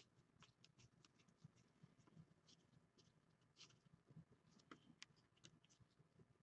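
Faint, scattered clicks and rustles of football trading cards being flipped through by hand.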